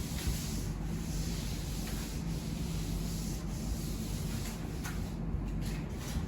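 A cloth wrung almost dry being rubbed quickly over the sanded carbon fiber surface of a surfboard to wipe on a thin coat of concrete sealer: a steady rubbing rustle, over a low steady hum.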